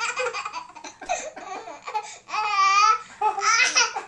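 A young child laughing hard in repeated bursts, with one longer, wavering high-pitched laugh a little past halfway through.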